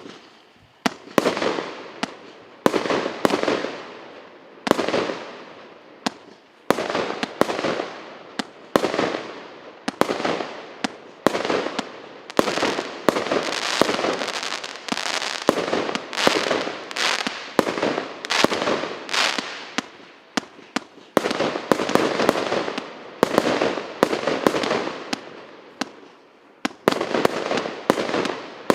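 'Iskander' firework battery (cake) firing its shots in quick succession: a series of loud bangs, about one to two a second, each followed by fading crackle. The crackle merges into an almost continuous run in the middle.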